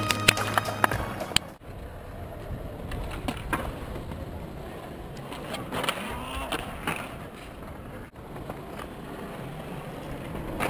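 Skateboard rolling over brick paving, with scattered sharp clacks and knocks of the board against the ground.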